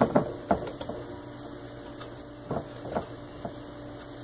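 Whole wheat bread dough being worked by hand into a ball in a glass mixing bowl: a few knocks and thumps as the dough is turned and pressed against the glass, a cluster at the start and more just past the middle.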